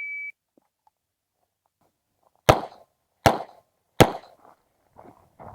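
Shot timer's start beep, then three 9mm shots from an Uzi Pro pistol about three-quarters of a second apart, followed near the end by a run of softer, irregular knocks.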